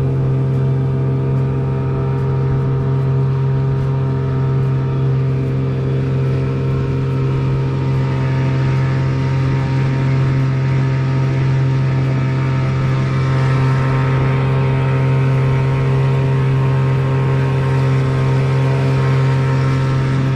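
Small outboard motor pushing a boat along at a steady cruising speed, a constant low hum that does not change.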